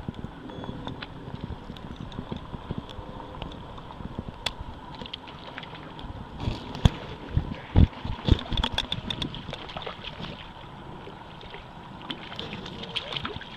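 A small crucian carp splashing at the water's surface on the line, then a few heavy thumps and wet slaps about halfway through as the fish is handled on the muddy bank and returned to the water, with more small splashes near the end.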